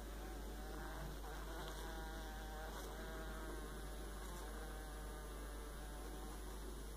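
A fly caught in a spider web buzzing its wings as it struggles: a faint, wavering buzz that comes and goes in fits and weakens near the end.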